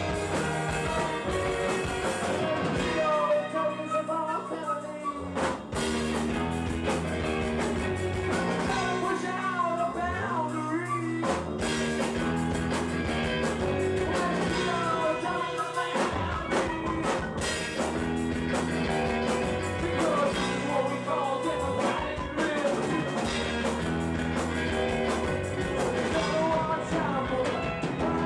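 A rock song with a singing voice over guitar and band accompaniment.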